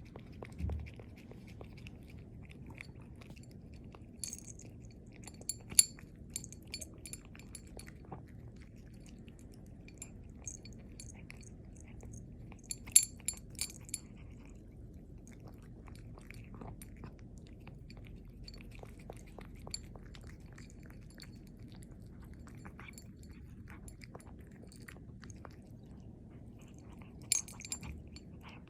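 A cat chewing and biting venison, with wet chewing and scattered crunching clicks; a few sharper, louder clicks stand out now and then.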